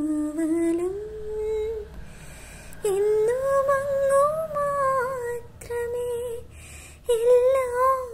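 A young woman singing a Malayalam Christian devotional song unaccompanied, in long held notes with vibrato and short breaks between phrases.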